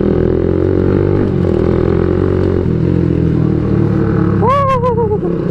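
Motorcycle engine running at low road speed with a noisy exhaust, heard from the rider's seat; the engine note shifts a couple of times with the throttle. A short voice call comes near the end.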